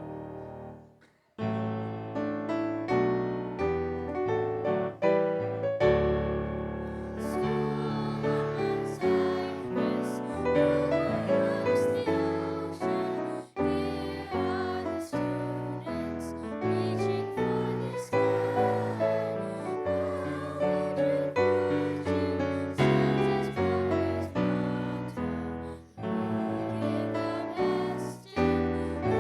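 Piano music, starting again after a brief pause about a second in.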